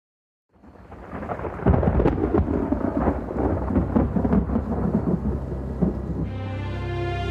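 A thunder-like rumble with crackles rises out of silence about half a second in and rolls on for several seconds. About six seconds in it gives way to music with long held chords.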